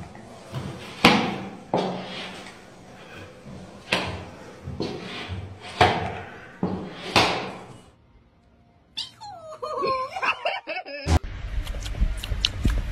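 Hollow knocks and thuds of a cat's plastic cone collar bumping against stone stair steps and the wall as it climbs, about six knocks over several seconds. Later comes a brief wavering call, then a run of small clicks.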